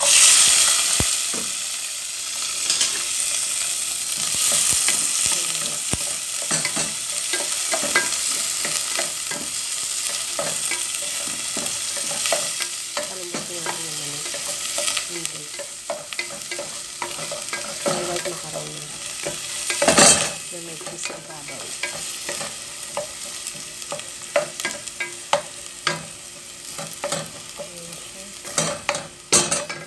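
Chopped onion tipped into hot oil in a metal pot, sizzling loudly at once and then settling into a steady fry that slowly quietens. A wooden spatula stirs and scrapes against the pot throughout, with one louder knock about twenty seconds in.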